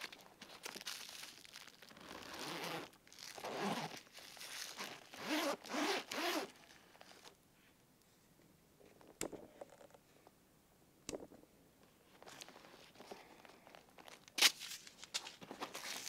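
The zipper of a Satchel & Page Founder leather briefcase being pulled open in several long rasping strokes over the first seven seconds. After that come two sharp clicks, light rustling and one louder click near the end.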